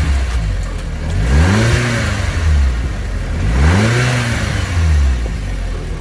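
Audi TTS's 2.0 TFSI turbocharged four-cylinder engine, still on its stock air intake, revved twice from idle: each rev rises and falls back, after the end of an earlier rev settling down at the start.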